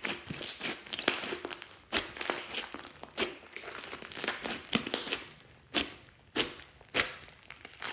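Hands squeezing and kneading a large mass of grey slime mixed with small coloured beads, giving a run of sticky, crackling pops and squelches, the sharpest ones coming every half second to a second.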